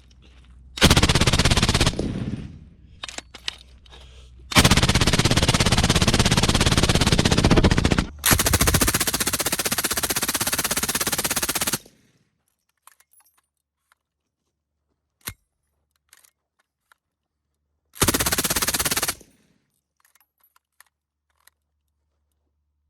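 An M240B machine gun firing 7.62×51mm full-auto through a Dead Air Sandman S suppressor on a torture test. There is a short burst about a second in, then a long run of fire from about four and a half seconds to twelve with a brief break near eight, and another short burst near eighteen seconds.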